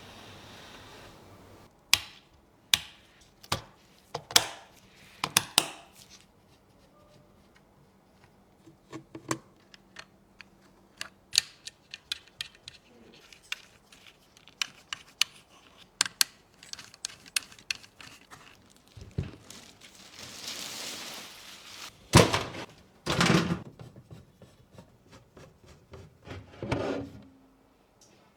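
Computer parts being handled and fitted by hand: a long run of sharp clicks and taps of plastic and metal pieces, a brief rustle about twenty seconds in, and several heavier thuds near the end.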